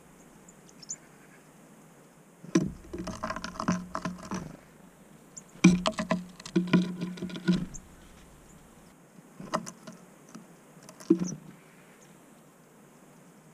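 Tits pecking and hammering at peanuts in a feeder: quick runs of sharp taps and knocks in two bursts of about two seconds each, then two short ones near the end.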